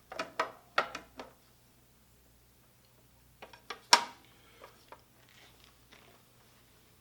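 Pump parts being handled on a workbench: a quick run of about five light knocks and clacks, then a second cluster about three and a half seconds in that ends in one sharp, louder knock as the bottom case goes back onto the pump.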